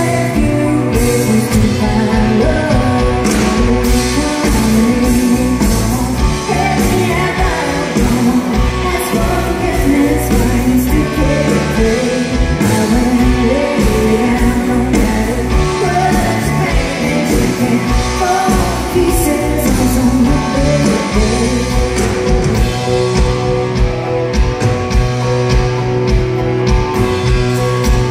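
Live rock band playing: a woman singing lead over electric guitars and drums.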